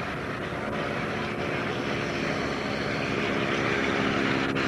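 Stearman biplane's radial engine and propeller in a low fly-past, a steady drone growing louder toward the end.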